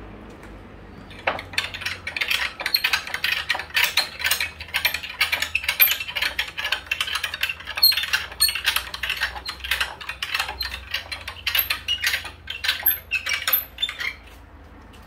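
Rapid, irregular crackling and tearing as the hide is fisted and pulled off a hanging beef carcass and the connective tissue separates from the meat. It starts about a second in and stops near the end.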